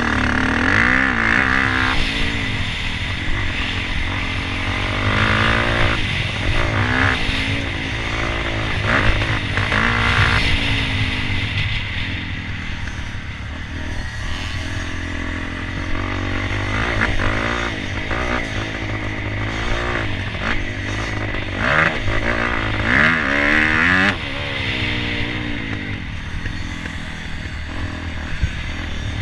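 Motocross dirt bike engine running and being revved up and down again and again, its pitch rising and falling.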